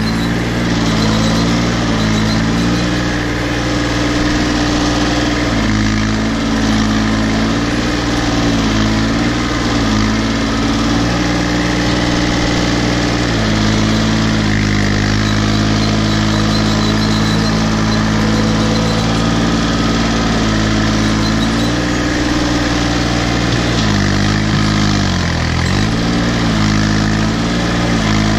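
Case 235 compact tractor's diesel engine running steadily under way through brush. Its pitch sags and recovers once near the end as the engine is loaded down.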